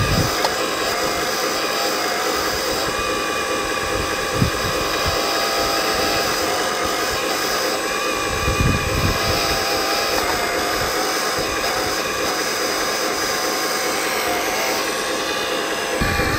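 Electric-driven hydraulic pump of an Earth Digger 4200XL RC hydraulic excavator whining steadily as the machine digs and swings its boom, with a few low thumps along the way.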